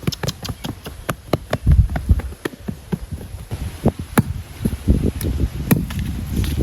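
A quick series of sharp taps and knocks, several a second, with a few heavier low thuds about two seconds in and again near the end.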